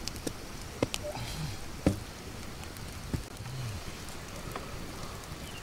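Wood campfire crackling: a steady hiss scattered with sharp pops, a few of them louder than the rest.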